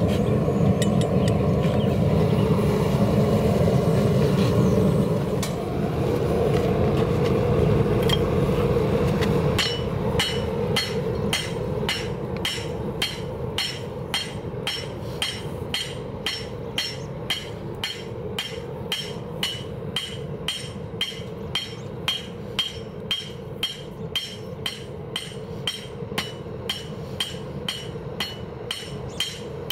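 Hand hammer forging a hot railroad spike on a steel anvil: even, steady blows about two a second, each with a bright metallic ring, starting about ten seconds in. Before the hammering, a dense low rumble.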